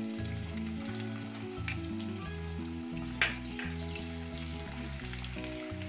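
Fried onions sizzling in hot oil in an aluminium pot as they are stirred with a spoon, with a sharp metal clink about three seconds in. Background music plays a steady run of low notes throughout.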